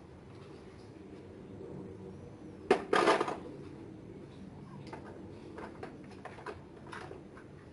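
Small metal hand tools clinking and clattering against each other and a plastic toolbox as they are handled, with a sharp knock and a louder clatter about three seconds in, then a few light clicks.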